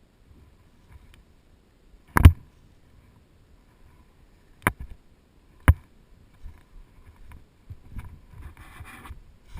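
Three sharp knocks, the first and loudest about two seconds in, the others about two and a half seconds and then one second later, over low rustling and bumping, with a brief hiss near the end.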